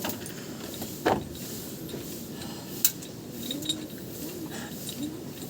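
Sharp metallic clinks and taps of hand tools on metal engine parts, the two strongest about a second in and just before three seconds in.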